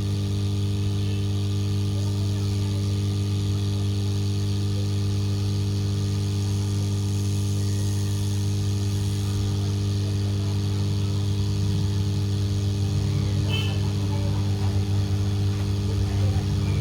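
Hot air rework station blowing with a steady, even hum while heat is applied to a phone circuit board to melt the solder and seat a new charging jack.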